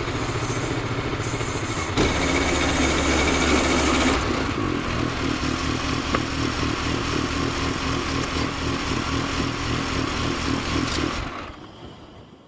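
Gas engine of a Woodland Mills HM122 portable bandsaw mill running steadily under way. The hissing top end drops off about four seconds in, and the whole sound dies away near the end.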